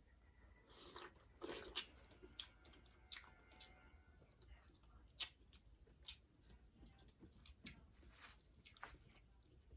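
Faint, close-up eating sounds: a person chewing and biting into seafood-boil food, with scattered sharp clicks and crackles at irregular moments.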